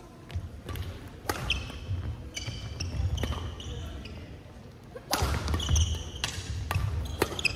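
Badminton rally in a sports hall: sharp racket strikes on the shuttlecock about once a second, court shoes squeaking on the floor and footfalls thudding, with voices in the hall behind.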